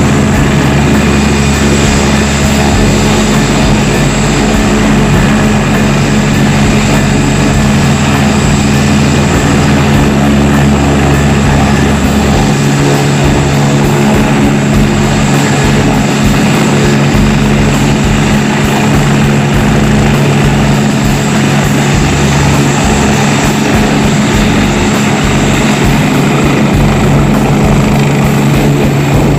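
Agusta A109 twin-turbine helicopter running on the ground with its main rotor turning: a loud, steady turbine and rotor hum of constant pitch, holding at idle without spooling up or down.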